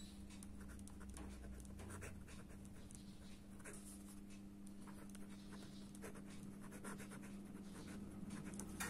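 Ballpoint pen writing on ruled notebook paper: faint, irregular scratching strokes as words are written out, over a steady low hum.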